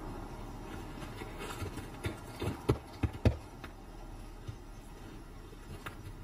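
Snow leopard's footsteps: irregular soft crunches and thuds of paws on snow and stones, bunched in the middle with the two loudest about half a second apart, a few fainter ones later, over a steady low background hum.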